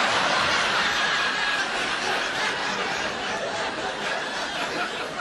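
Theatre audience laughing after a punchline, the laughter slowly dying down.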